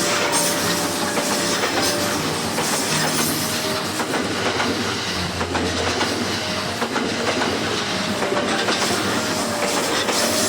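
Train running through a curve, its wheels clattering over rail joints with some wheel-on-rail squeal and creak.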